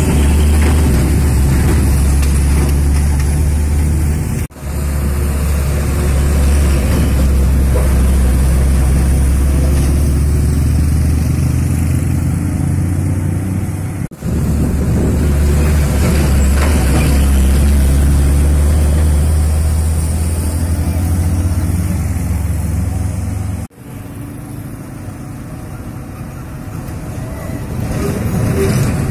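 Heavy diesel trucks pulling through a bend, a deep steady engine drone from several separate passes cut together, with abrupt breaks about four, fourteen and twenty-four seconds in. The last pass is quieter and builds toward the end.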